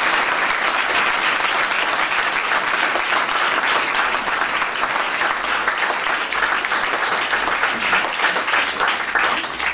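Audience applauding, many people clapping steadily; the applause dies away right at the end.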